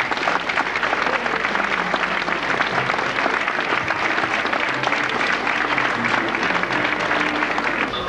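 Crowd applauding steadily.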